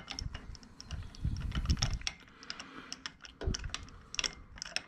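Irregular metallic clicks and clinks from a 16 mm spark plug socket on an extension bar being turned in the plug well of a Kawasaki Z1000 engine, working a loosened spark plug out.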